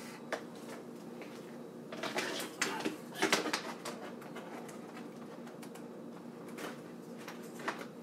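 Handling of PC power cables and their plastic connectors as they are fed through a computer case's cable-routing holes: scattered rustles and light clicks, busiest about two to three and a half seconds in, over a faint steady hum.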